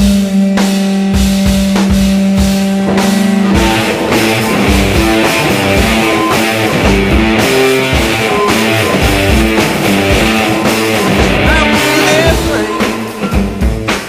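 Blues-rock recording: a distorted electric guitar holds one buzzing note over a drum kit beat, then breaks into a riff of changing notes about three and a half seconds in. The band thins out and gets choppier near the end.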